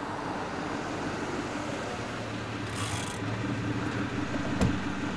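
A car driving on a road and drawing up: steady engine and tyre noise with a low hum, then a single sharp click about four and a half seconds in.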